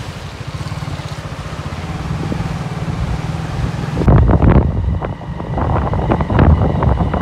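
Wind buffeting the microphone over a low, steady vehicle rumble while moving. About four seconds in, the sound changes abruptly and loud, irregular wind gusts take over.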